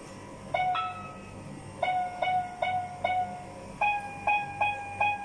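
Toy electronic keyboard played one note at a time: about ten beeping electronic notes in three short phrases, each held until the next key is pressed.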